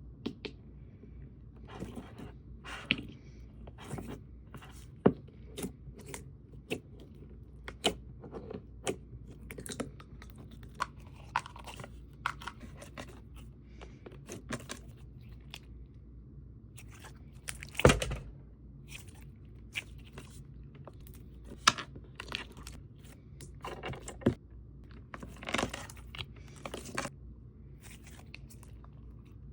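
Slime being pressed and squeezed by hand, giving irregular sharp clicks and short crackling pops, with one louder crackle a little past the middle.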